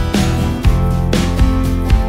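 Background music: a strummed acoustic guitar with a steady rhythm, a stroke about every half second.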